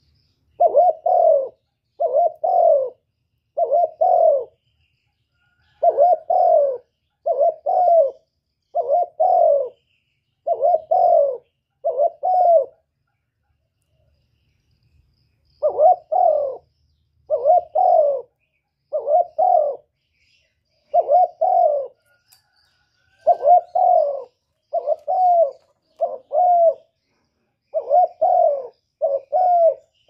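Spotted dove cooing over and over: low coos that fall slightly in pitch, mostly in quick pairs, with a pause of a couple of seconds just before the middle.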